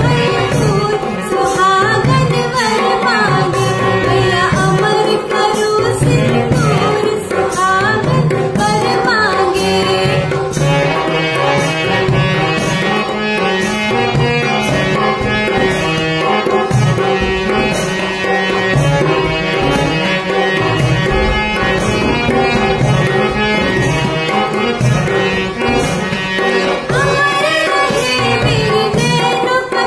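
A woman singing a Bundeli folk song over drum and instrumental backing. About ten seconds in, her voice drops out for an instrumental passage, and she starts singing again near the end.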